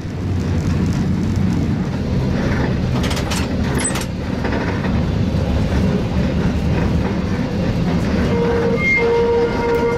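Historic tramcar running on its rails, heard from the driver's cab: a steady low rumble with a few clacks of the wheels over the track about three to four seconds in. Near the end a steady multi-pitched whine sets in, pulsing on and off.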